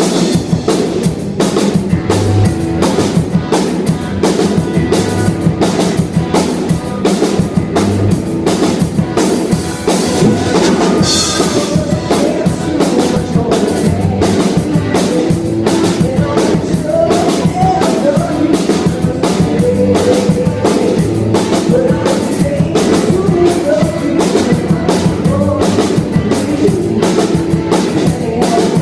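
Live rock band playing a cover song: drum kit, electric guitar and bass, loud and steady, with a voice singing over it in the second half.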